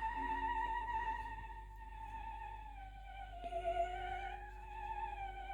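Music: one long, high, wavering note held throughout, dipping slightly lower about halfway through and then rising again, over a steady low hum.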